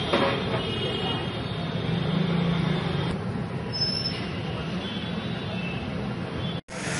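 Outdoor street ambience: a steady hum of road traffic, broken by a brief dropout near the end.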